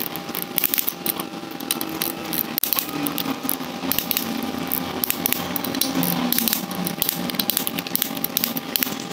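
Click-type torque wrench ratcheting as the water pump bolts are tightened to 10 Nm: a run of quick light metallic clicks, with one sharper click about two and a half seconds in.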